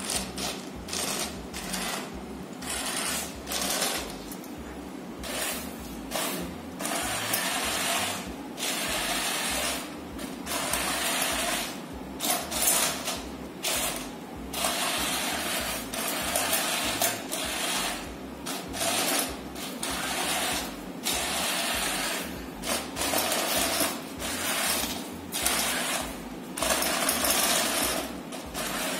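Small geared DC drive motors and hobby servos of a Bluetooth-controlled robot car whirring in many short runs, starting and stopping every second or two as it is driven and its servo arms are worked.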